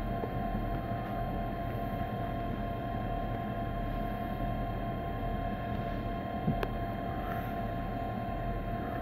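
Steady electric hum inside a stationary electric train carriage, with constant whining tones and no wheel or track noise, and one sharp click about six and a half seconds in.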